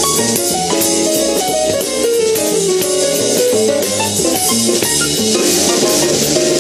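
Background music with a steady drum beat and pitched instrument notes.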